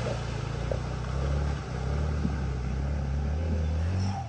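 Suzuki Van Van 125 single-cylinder four-stroke engine running steadily at low revs in first gear as the small trail bike works through deep mud and puddles.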